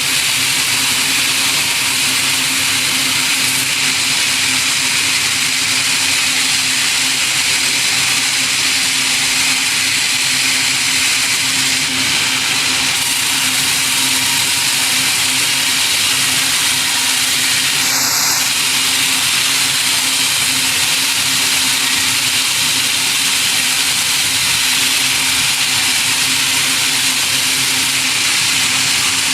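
Sawmill machinery running steadily and loudly, a dense hiss over a constant low hum. A brief high squeal sounds about two-thirds of the way through.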